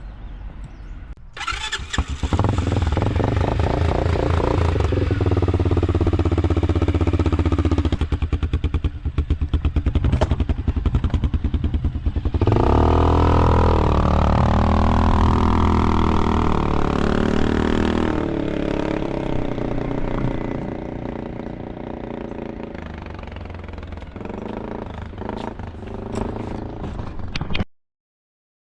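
A 350 cc petrol ATV engine starts about a second in and runs, rising and falling in pitch as it is revved. It grows quieter in the later part and cuts off abruptly near the end.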